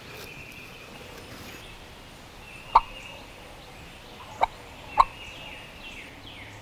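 Eastern wild turkey gobbler gobbling from its roost tree: three short, loud gobbles, the last two close together. Faint falling whistles of other birds near the end.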